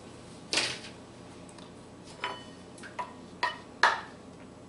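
Kitchen utensils clinking and knocking against a mixing bowl of muffin batter: about six short, sharp clicks, one about half a second in and the rest in a cluster later on, the loudest near the end.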